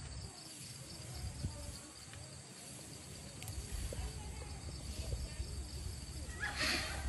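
Faint outdoor background: a steady high insect drone over a low rumble, with a brief hissing burst near the end.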